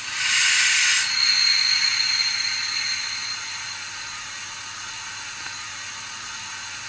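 Model steam locomotive's sound decoder playing recorded steam through a small speaker. A loud burst of hiss lasts about a second, then hiss with a thin high tone fades over the next few seconds into a steady, quieter hiss.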